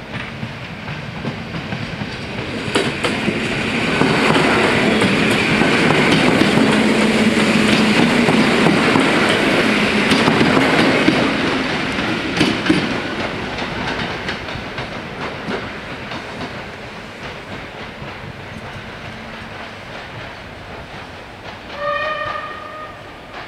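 Passing train on an electrified line: its wheels clack over the rails, loudest for several seconds, then the sound fades away as it leaves. Near the end a short pitched tone sounds as the crossing barriers rise.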